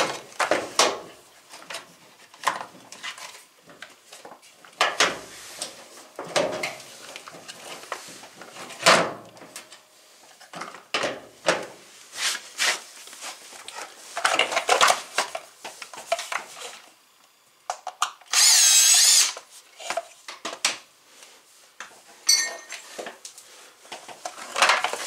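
Repeated clicks and knocks of a washer's plastic control-board housing being handled, then a cordless drill runs for about a second and a half near the end, with a brief second burst soon after.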